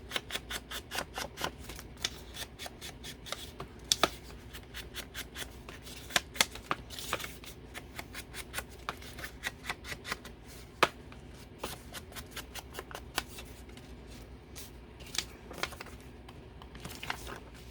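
Edges of a paper guest check being scraped with a distressing tool, giving quick scratchy strokes. They come in fast runs during the first few seconds and are more scattered later.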